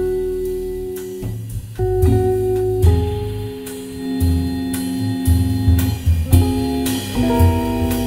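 Jazz organ trio playing live: a Godin archtop guitar plays a single-note line over held Hammond organ chords and bass notes, with drums and cymbals keeping time.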